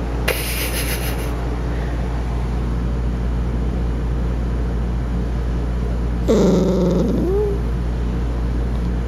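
Sleepy, grumpy puppy giving a short grumbling bark near the start and a longer growling grumble about six seconds in, over a steady low hum.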